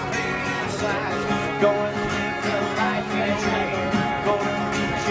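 Acoustic guitar strummed live, with a singer's voice over it.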